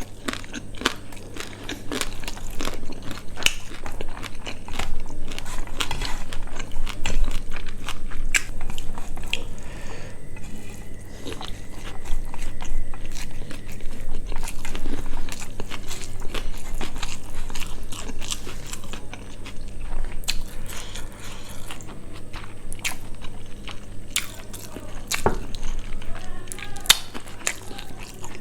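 A person chewing and biting into quail curry with rice, close to the microphone, with many short sharp clicks from mouth and food.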